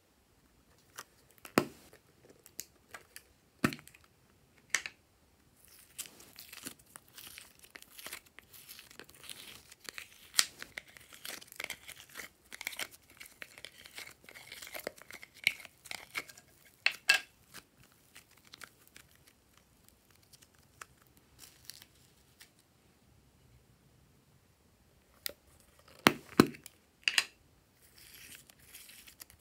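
Thin plastic heart-shaped slime tubs being handled and squeezed while soft slime is pulled out of them by hand: crinkling and soft tearing, broken by sharp clicks of the plastic. There is a long run of crinkling in the first half, then a quiet stretch, a few loud clicks, and more crinkling near the end.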